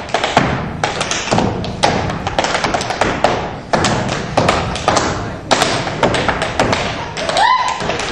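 Tap dancing: metal-plated tap shoes striking the floor in fast, uneven flurries of taps mixed with heavier stamps.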